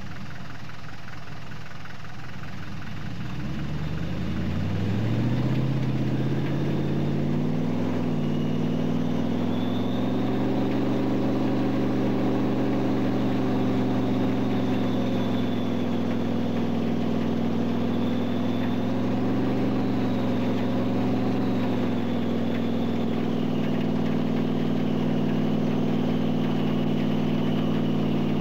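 Glider launch winch engine revving up under load: its pitch climbs over the first several seconds with a brief dip partway, then holds at high revs and eases slightly near the end, with a faint high whine above it.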